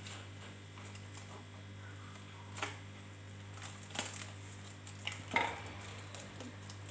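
Plastic cling film crinkling as it is pressed and smoothed over the mouth of a glass jar: a few faint, short crackles.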